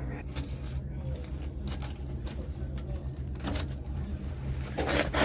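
Steady low hum of a refrigeration unit, with scattered light clicks and taps of handling and a louder scrape near the end.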